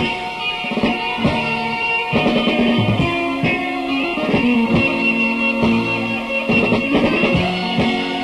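Live band playing an instrumental passage of Greek laïkó music, led by plucked string instruments over bass with steady percussive strokes, with no singing.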